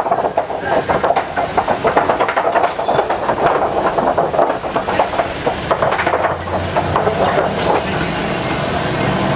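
Safari truck crossing a wooden plank bridge: a dense clatter of knocks and rattles from the planks under the wheels, easing after about six seconds into the steadier hum of the truck's engine.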